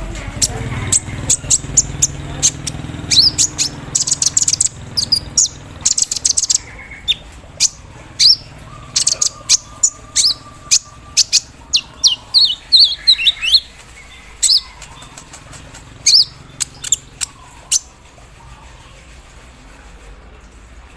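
Sunbird (kolibri ninja) singing a fast run of high, sharp chirps and short trills, thick through the first fourteen seconds or so, then thinning to a few scattered notes near the end.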